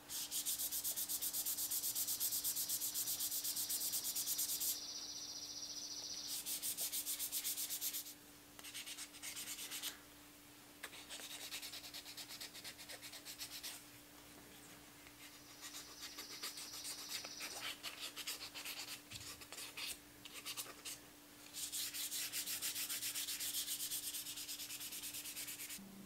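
Sandpaper rubbed by hand along a carved bird's eye maple knife blade: quick back-and-forth sanding strokes in several bouts of a few seconds each, with short pauses between.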